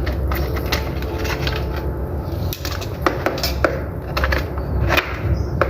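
Scattered sharp clicks and light clatter of small hard objects being handled on a bench, over a steady low hum.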